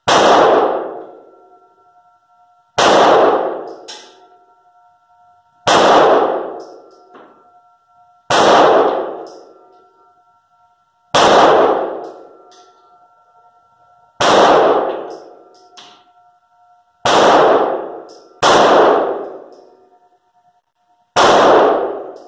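Smith & Wesson M&P Shield EZ 9mm pistol fired in slow, aimed single shots, nine in all, about one every three seconds. Each shot is sharp and loud and rings off the walls of an indoor range.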